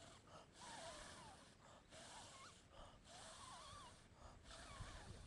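Breathy air noise from a man bent right over the microphone, coming in soft puffs with short breaks between them. Faint wavering whistled calls sound several times behind it.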